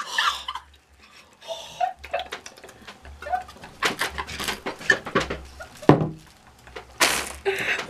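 A woman laughing hard in short, breathless, wheezing gasps, with a louder burst about six seconds in.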